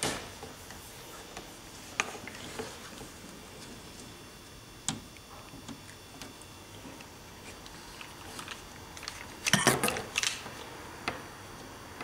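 Scattered small clicks and taps as a hot glue gun and hands work at the plastic frame of a model-railway transfer table, gluing a sensor in place, with a short, louder clatter about ten seconds in.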